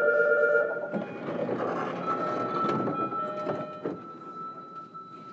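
Electronic door-closing warning chime of a JR Kyushu 305 series train at a station, a steady pulsing multi-tone signal that cuts off about a second in. It is followed by the doors sliding shut, with knocks about a second in and again near four seconds, under a faint steady high tone.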